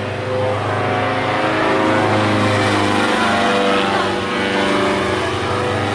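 Paramotor's small engine and propeller droning steadily, the pitch shifting a little partway through.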